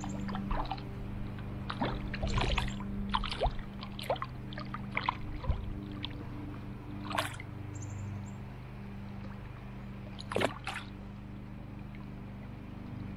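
Stream water splashing and trickling, with a run of short splashes and sloshes that thins out after the first half and two louder splashes later on. A low steady hum runs underneath.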